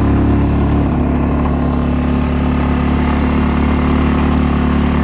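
A motor vehicle's engine running steadily under way with road noise, heard on board the moving vehicle.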